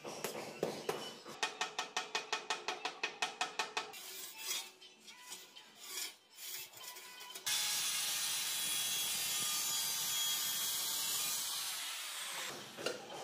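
Ceramic wall tile being worked by hand and cut. First come quick, even scraping strokes, about five a second. About seven seconds in, a loud steady hiss of the cut starts abruptly and runs for about five seconds.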